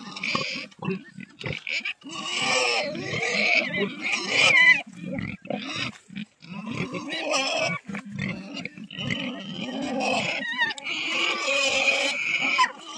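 Pigs squealing and grunting in repeated bouts, with short breaks between the calls.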